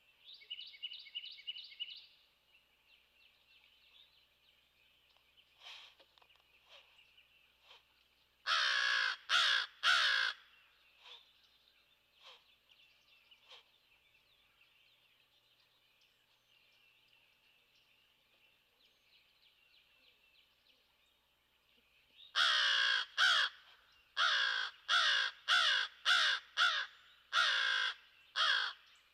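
Crow cawing: three loud caws about nine seconds in, then a run of about ten caws in quick succession over the last seven seconds.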